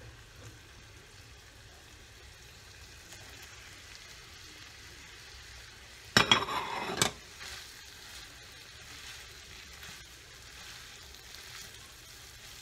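Bacon and chopped hot dogs frying in a pan, with a faint steady sizzle. About six seconds in, diced onions are tipped from a bowl into the hot bacon grease, giving a loud sizzle of about a second. The quieter sizzling then continues as they are stirred with a spatula.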